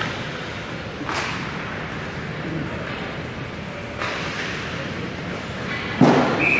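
Ice hockey game sounds: skates scraping and sticks on the ice, with sharp scrapes about one and four seconds in. About six seconds in comes a loud hit at the net, the goalie stopping the puck, and right after it a referee's whistle blows a single steady note.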